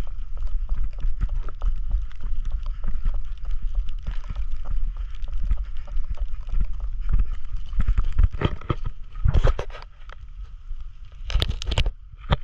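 Footsteps of a person walking along a wet paved road, with wind rumbling on the handheld camera's microphone and handling knocks. There are a few louder scuffing bursts near the end.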